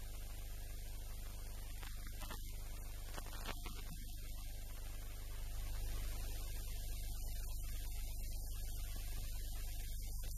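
A steady low hum with faint background music.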